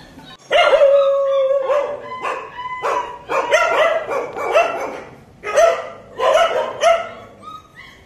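Two-week-old Kanni (Chippiparai) puppies crying: a run of high-pitched yelps and whines. The first is drawn out for about a second, and the rest are shorter, coming roughly once a second.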